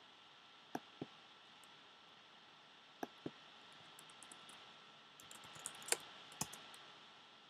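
Faint clicks of a computer mouse and keyboard: two pairs of quick clicks, then a short run of typing with one louder keystroke about six seconds in.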